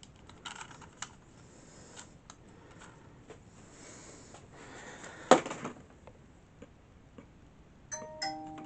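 Small clicks and taps from handling objects on a table, with one loud knock about five seconds in. Near the end comes a short electronic chime of a few steady tones: a phone notification.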